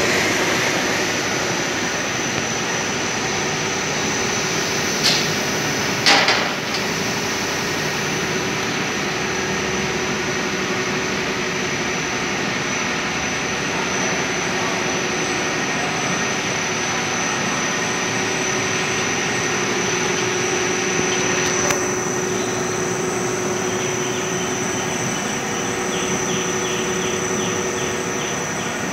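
Roll-to-roll flexographic printing machine running steadily: a constant mechanical noise with a high, steady whine and a low hum. It is broken by two sharp knocks about five and six seconds in, the second the loudest, and another knock a little past twenty seconds.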